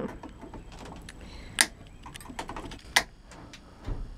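Side cutters snipping off the wire ends of a rewound transformer's windings at its terminals: two sharp snips about a second and a half apart, with fainter metallic ticks between.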